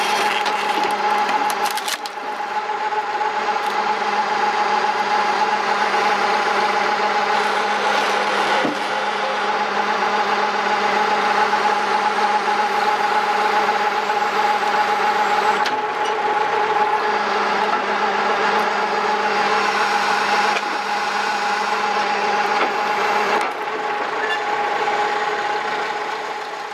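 Homemade horizontal hydraulic log splitter running under load with a steady whine as its wedge is forced lengthwise through a long beech log. A few brief cracks or knocks come through the whine.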